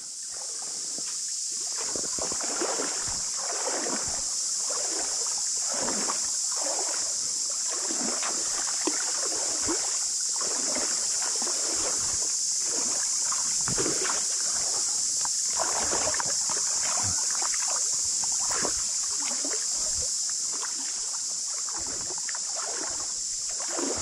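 A loud, steady high chorus of cicadas, with water swishing and sloshing irregularly as someone wades through a shallow river.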